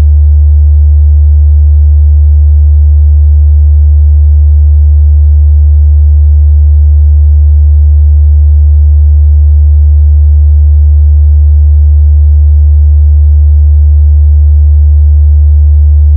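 A steady electronic drone: one loud low tone with fainter, evenly spaced higher tones above it, held without change, of the kind used as a meditation frequency.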